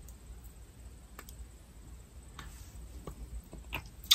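Faint scattered clicks and taps over a low steady room hum, with one sharper, louder click near the end.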